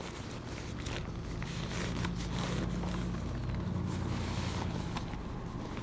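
Nylon hiking pack and foam sleeping mat being handled, with faint rustles and light knocks, over a steady low motor hum that swells in the middle and eases off near the end.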